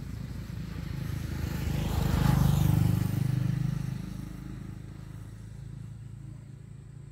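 A motor vehicle passing by on the road, its engine and tyre noise swelling to a peak about two to three seconds in and then fading away.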